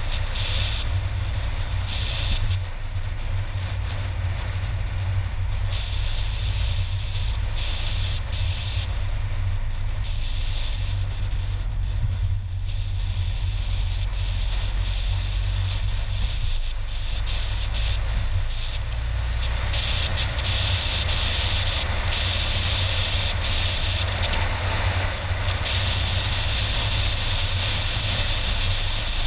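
Steady road and wind noise of a car driving at speed: a low rumble with an even hiss above it.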